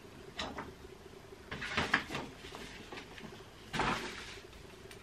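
Handling noise from unwrapping a CD album: three short rustles of its crinkly wrapping and the album being moved, over a faint steady hum.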